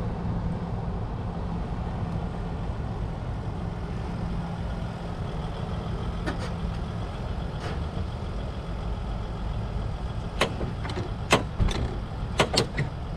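Mercedes Sprinter-based camper van driving up and pulling to a stop, its engine a steady low rumble. A run of sharp knocks and clicks comes in the last three seconds.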